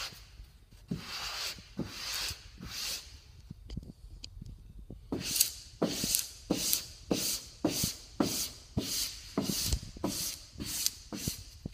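Felt-edged plastic squeegee rubbed over vinyl stripe film on a car panel, a run of scraping strokes: a few slower ones at first, then from about five seconds in quick regular strokes, about two a second.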